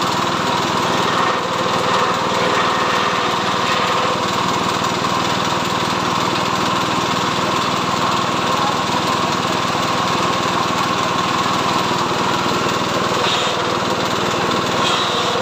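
Small engine running steadily under load, driving the stripping drum of an abaca decorticating machine.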